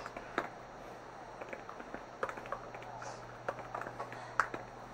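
Quiet film soundtrack: a steady low hum with scattered light taps and clicks at irregular intervals, the sharpest one near the end.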